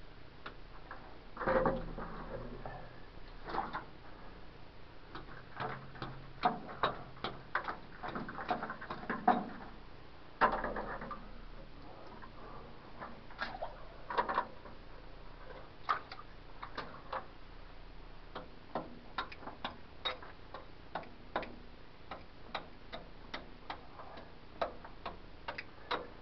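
Hand tools tapping and scraping at a mine's rock face, with irregular sharp clicks of loose rock bits and a few short scrapes, mostly in the first half.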